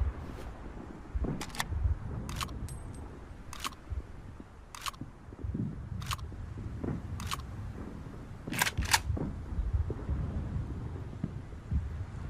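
Sharp mechanical clicks from a gun's mechanism, about one a second, with two in quick succession near the end.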